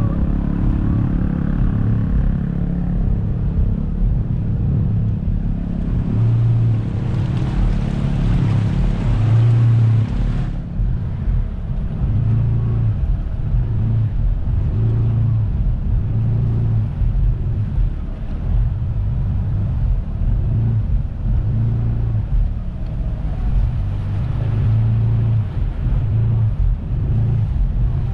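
An engine running steadily under way, with wind buffeting the microphone in uneven low thumps. A rush of hiss comes in about six seconds in and cuts off sharply about four seconds later.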